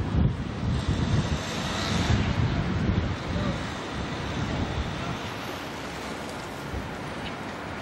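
Wind gusting on a camcorder's built-in microphone, an uneven low rumble, over a steady hiss of street noise.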